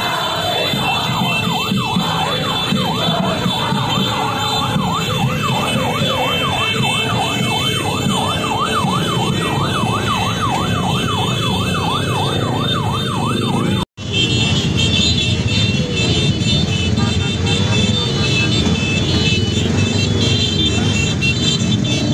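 An electronic siren on a yelp setting sweeps rapidly up and down, about three times a second, over the rumble of many motorcycle engines. About fourteen seconds in, the sound cuts out for an instant. It returns as engine rumble and crowd noise without the siren.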